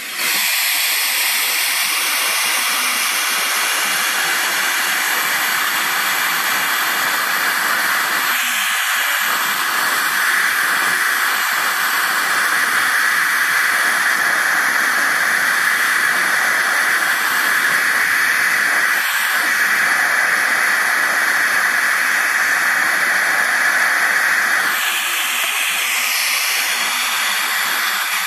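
Jeweller's gas torch flame hissing steadily while it heats a platinum ring for soldering. The hiss jumps louder just after the start and eases a little a few seconds before the end.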